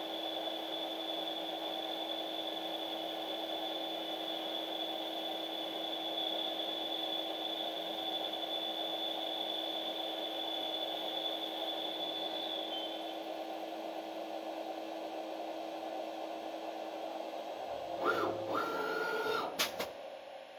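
CNC lathe running steadily with a high whine while a boring bar cuts inside the bore of the part. The whine stops about two thirds of the way through, and near the end there is a louder, shifting mechanical whir and a few sharp clicks as the tool pulls out of the bore.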